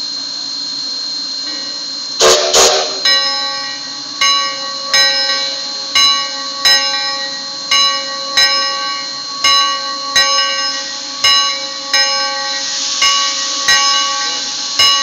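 Steam locomotive's bell ringing in regular pairs of strikes, about one pair every second and a half, each strike ringing on, over a steady hiss of steam from the engine. A loud burst comes about two seconds in, just before the ringing starts, and the hiss grows louder near the end.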